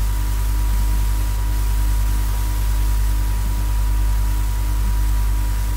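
Steady low electrical hum and buzz from the recording chain, with a faint steady tone and hiss over it.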